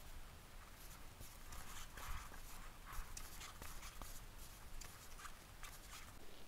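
Faint, irregular scratchy rustling and light ticks of a crochet hook drawing acrylic yarn through stitches.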